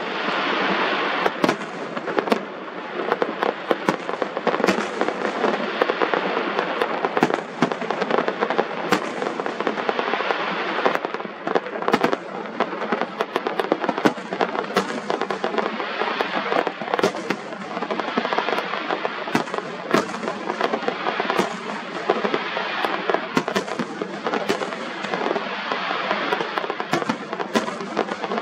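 Fireworks display: sharp bangs of bursting shells, one every second or two, over a continuous crackle and hiss.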